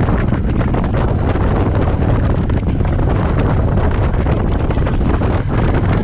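Steady wind rush on the camera microphone over a motorcycle engine running at road speed.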